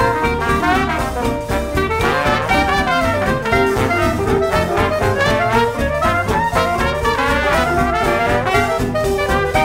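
Background jazz-style music with brass instruments and a steady beat.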